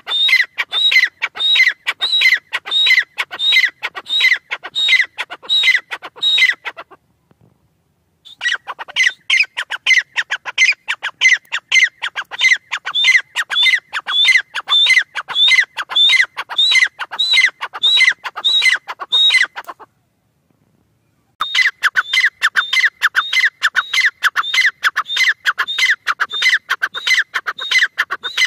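Grey francolin calling: long, fast series of shrill, repeated notes, about two phrases a second, in three bouts that break off briefly about 7 seconds in and again about 20 seconds in.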